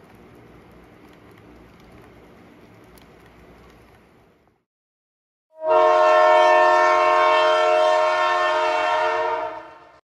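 Faint running noise of HO model trains on a layout, then, about five and a half seconds in, a diesel locomotive's multi-chime air horn sounds one long chord of about four seconds that fades out at the end.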